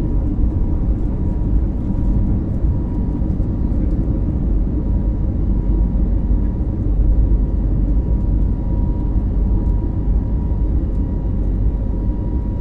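Steady airliner cabin noise in cruise inside an Airbus A321neo: a low, even rumble of engines and airflow with a faint steady tone above it.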